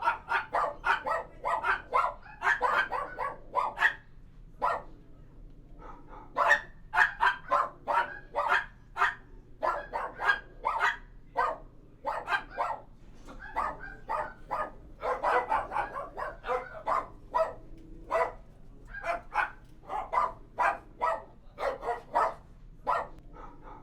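Dogs in a kennel barking over and over, short sharp barks in quick runs that sometimes overlap, with brief lulls between bouts.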